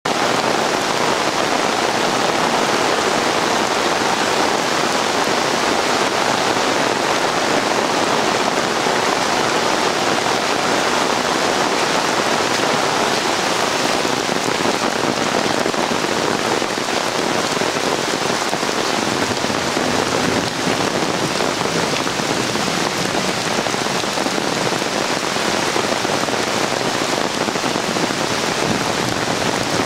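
Heavy rain falling steadily on trees, grass and standing floodwater: a dense, even hiss with no let-up.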